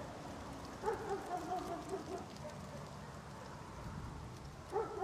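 Indian puppies whimpering and yipping in short wavering cries, a run of them about a second in and another near the end, over a light crackle of dry leaves underfoot.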